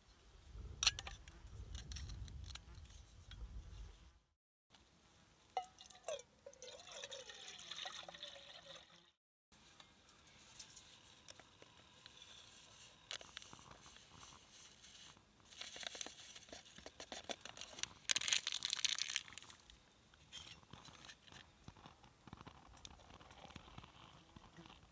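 Camp cooking sounds: water being poured and sloshed, with scattered clicks and handling of kit. A short, loud hiss comes about three-quarters of the way through.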